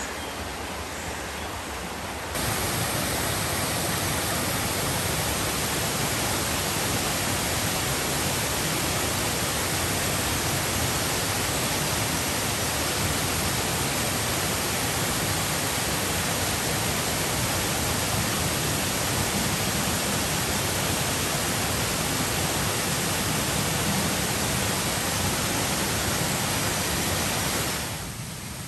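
Janet's Foss, a small waterfall, rushing steadily into its pool. About two seconds in the rush steps up louder and holds, then drops back near the end.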